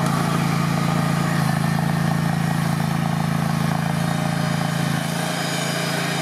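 Vermeer SC30TX tracked stump grinder's engine running steadily at the stump, easing slightly in level about five seconds in.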